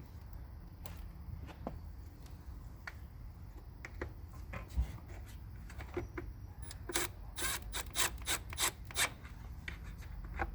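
Hand work fitting the top screw into a motorcycle side cover: light tool clicks and rubbing, then a quick run of about eight sharp clicks, roughly three a second, in the second half, over a low steady hum.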